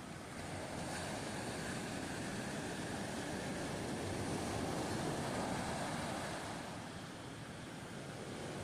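Sea surf washing onto a beach, a steady rush of water with some wind, swelling about halfway through and easing near the end.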